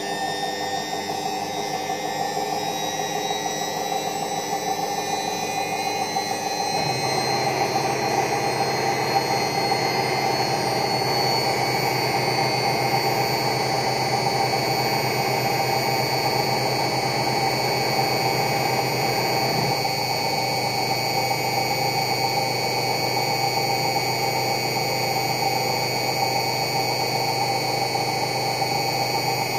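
Front-loading washing machine spinning its empty drum at speed: a high motor whine rises slowly as the drum speeds up over the first ten seconds, then holds steady. About seven seconds in, the sound grows fuller and a low hum joins in.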